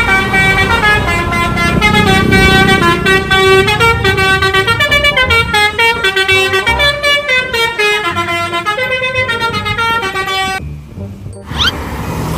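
Bus telolet horn, a Basuri multi-trumpet musical air horn, playing a loud tune of several notes sounding together and stepping up and down in pitch. It breaks off about ten seconds in, and a rising, warbling tone follows near the end.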